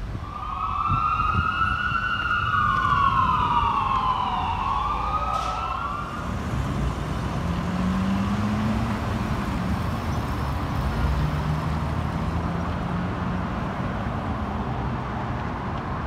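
Fire truck siren wailing, rising and falling in pitch for several seconds, then giving way to the low, steady rumble of a fire truck's diesel engine, whose pitch rises and falls briefly.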